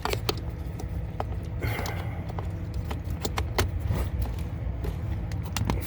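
Irregular sharp clicks and light rattles of small hard parts being handled, about a dozen spread unevenly, over a steady low hum.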